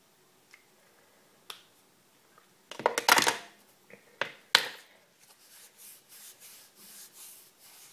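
Close handling sounds of a small syringe and clothing as a self-injection is prepared: sharp clicks and taps, a loud short rustle about three seconds in, then soft brushing sounds.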